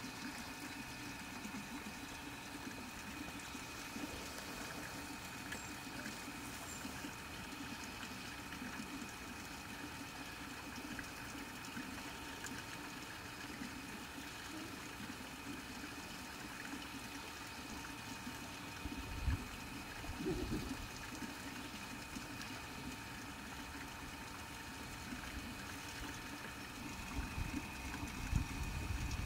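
Steady background hum of running machinery with a faint high whine. A couple of low thumps come about two-thirds of the way in, and a low rumbling starts near the end.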